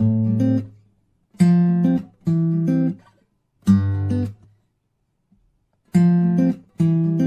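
Background music: short groups of chords with brief gaps between them, and one longer pause about halfway through.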